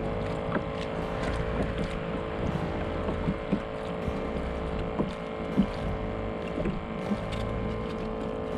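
A steady mechanical hum with low rumble and water noise, heard from a kayak on the water, with scattered light knocks.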